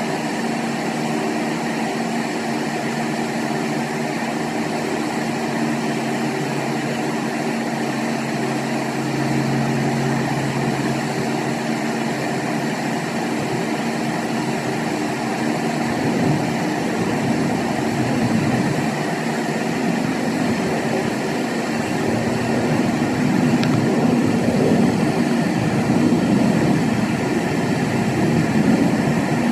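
A machine running steadily: a constant low hum at an unchanging pitch, with an even hiss over it.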